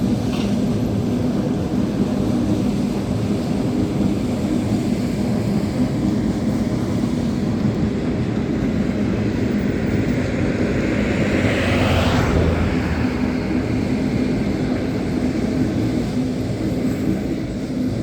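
Long-distance passenger train running past with a steady rumble and a low drone. It swells to its loudest about two-thirds of the way through, then starts to fade near the end.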